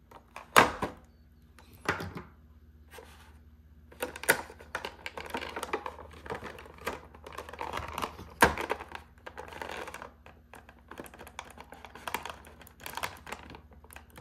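A clear plastic packaging tray crinkling and rattling under the hands, with several sharp clicks and snaps, as the plastic ties holding an action figure's feet to the tray are cut with a folding utility knife.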